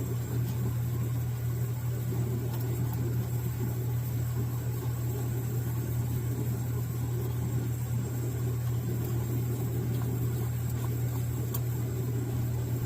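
Steady roar of a lit Camping Gaz Bleuet S200 backpacking stove and gas lantern burning on butane, with a few faint clicks as the heater is pressed onto its puncture-type gas cartridge.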